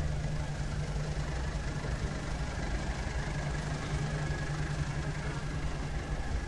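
Pulling tractor's engine running steadily at idle as the tractor creeps past close by.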